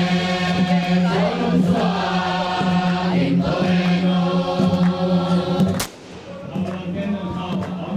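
A group of voices chanting together over a steady held low note. The sound breaks off sharply about six seconds in and comes back quieter.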